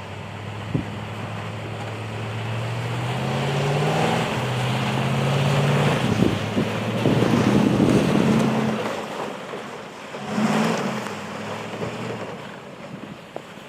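Nissan Titan pickup's engine running under load while driving through snow, its pitch stepping up and down as it revs and eases off. A loud rushing noise swells in the middle, and a short surge of revs comes near the end.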